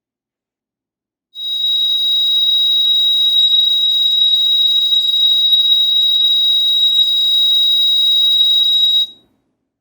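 The buzzer of a DIY laser tripwire alarm sounds one steady, loud, high-pitched tone for about eight seconds, starting suddenly and cutting off sharply. It is the alarm going off because the laser beam on the light sensor is broken.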